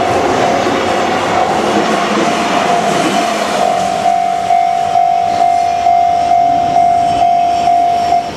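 Japanese railway level-crossing alarm ringing, a repeated clang about twice a second, over the noise of a passing Kintetsu train that dies away in the first half. The alarm cuts off abruptly near the end, as the crossing clears after the train.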